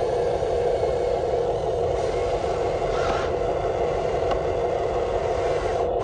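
Electric motors of a radio-controlled construction model running with a steady whir, with a couple of faint ticks about three and four seconds in.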